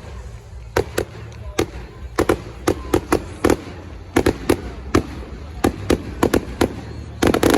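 Fireworks going off in an irregular string of sharp bangs, a few a second, with a rapid cluster near the end.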